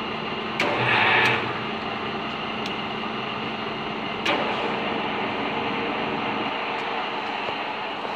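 Large milling machine running with a steady mechanical hum. About half a second in there is a sharp click followed by a brief, louder whirr lasting under a second, and another sharp click comes around four seconds in, as the machine's controls are switched from its push-button panel.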